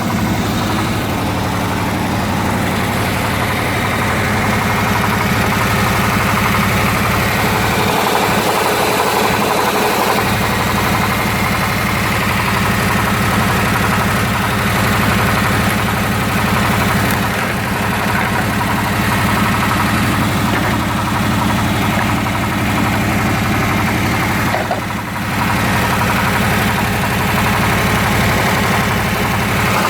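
1995 Camaro Z28's LT1 V8 idling steadily, with a knock that the owner asks about as possible rod knock.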